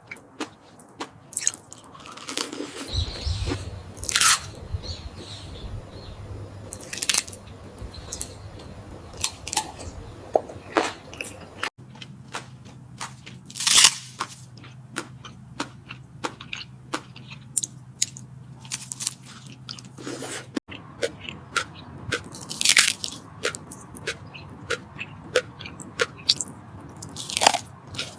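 Close-miked eating sounds of a person biting into and chewing salmon: sharp, crunchy bites and wet chewing, with a few louder bites. The sound breaks off abruptly twice and continues with a different background hum, as one eating clip gives way to the next.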